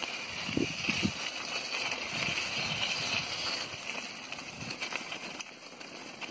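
Bicycle ridden over a wet gravel-and-mud dirt road: tyres crunching on small stones, with scattered light clicks and knocks, over a steady high hiss.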